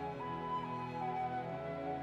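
Slow orchestral background music with long held notes and a slowly stepping melody.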